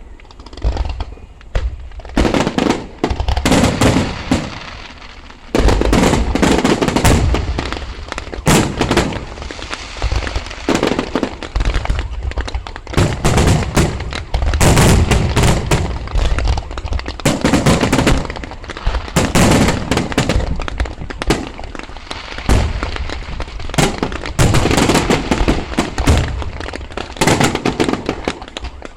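Fireworks display going off in rapid, overlapping bangs and bursts, after a short quieter stretch at the start.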